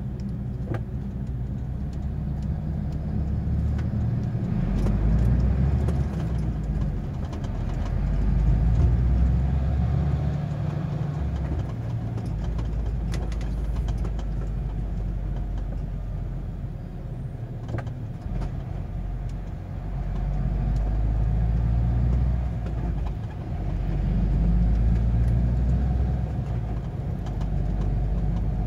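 Truck engine heard from inside the cab, pulling away from a standstill and running along, its note rising and falling several times as it accelerates and eases off. There are a few faint clicks and rattles in the cab.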